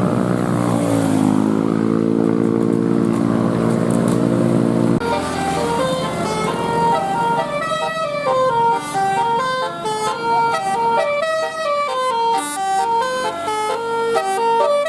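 Bus 'telolet' horn: a long held note that dips in pitch and then holds, cut off after about five seconds, then a quick tune of stepping notes played on the horns.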